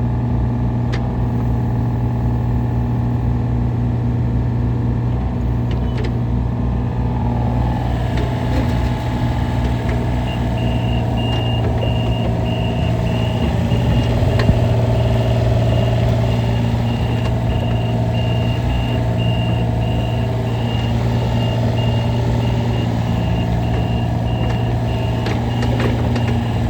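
Kubota KX033-4 mini excavator's three-cylinder diesel engine running steadily, with hydraulic tones that shift in pitch around eight seconds in. From about ten seconds in, a high travel alarm beeps in a steady on-off rhythm, the warning that the machine is moving on its tracks.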